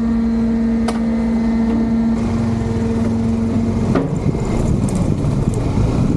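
An engine running at a steady pitch, with a sharp click about a second in. About four seconds in, the steady hum drops out and a rougher, lower engine note carries on.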